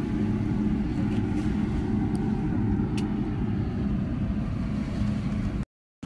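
Steady low motor or engine hum with a rumble, running evenly and cutting off abruptly just before the end.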